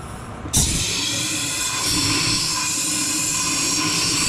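Compressed-air blow gun hissing in one long, steady blast with a faint whistle, starting suddenly about half a second in, blowing out a mower part to clear its screen.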